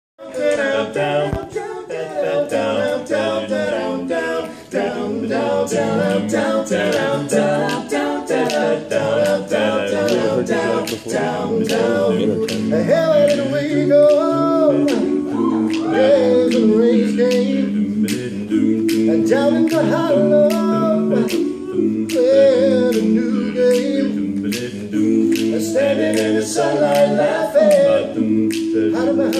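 Barbershop quartet of men singing a cappella in close four-part harmony over a steady clicking beat. From about halfway in, the voices hold long, ringing chords.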